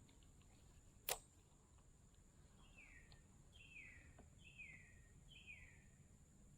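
Faint bird calling four times, each a short falling note about a second apart, after a single sharp click about a second in.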